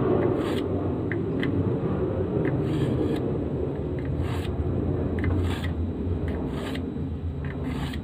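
Small folding-knife blade stroked across a smooth ceramic hone: about six short scraping strokes, roughly one a second, with a few light ticks between them. A steady low rumble runs underneath.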